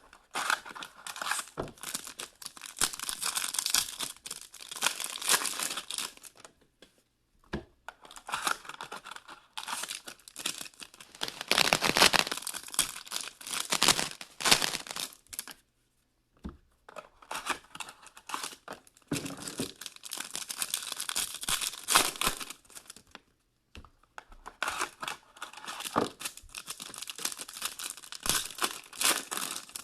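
Trading-card packaging being torn and crinkled by hand, in runs of a few seconds separated by short pauses.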